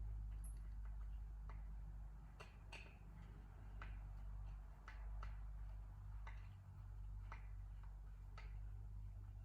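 Scattered light clicks and taps of hand tools and small metal parts as a Stihl MS440 chainsaw's muffler is being taken off, about one or two a second at uneven intervals, over a steady low hum.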